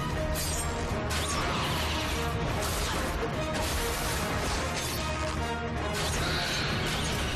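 Fight-scene sound mix: a music score running under repeated crashes and impacts, with sparks and debris.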